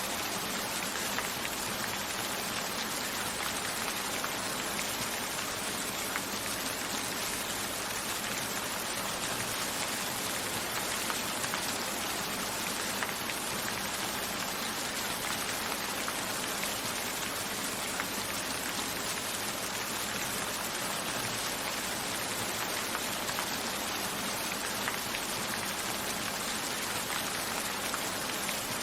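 Steady rain falling, an even hiss with individual drops landing now and then.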